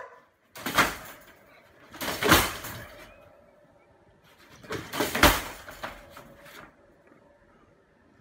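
Wire dog crate rattling as a bulldog inside moves against it: three sharp rattles about a second and a half apart, then a fainter one, with quiet in between.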